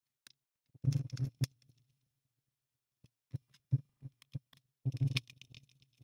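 Screwdriver clicks and light knocks while undoing the small screws of a laptop's 2.5-inch drive bay. They come in short clusters about a second in and again around five seconds in, with a few single clicks between.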